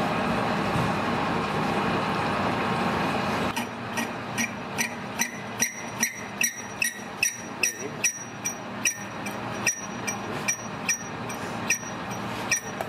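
Metal lathe running with its chuck spinning a metal workpiece, a steady noise at first. About three and a half seconds in, this gives way to an evenly spaced run of sharp ringing clicks, a little over two a second.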